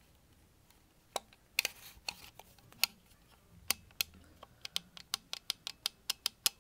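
Sharp plastic clicks of a toy remote control's buttons being pressed over and over, scattered at first, then a quick run of about five or six clicks a second near the end, with a brief scraping rustle about two seconds in. The toy does not respond.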